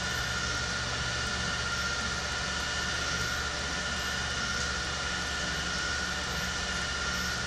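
Steady background room noise: a constant low hum and hiss with a faint steady high whine.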